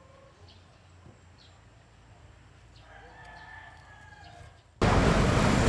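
A rooster crowing faintly, one long call about three seconds in, over a quiet background with a few short bird chirps. Near the end it cuts off suddenly to loud, steady rushing noise.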